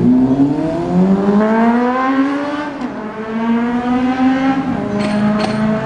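A vehicle accelerating, its engine pitch rising for about three seconds, dropping briefly at a gear change, rising again, then dropping and holding steady. Two short high clicks sound about five seconds in.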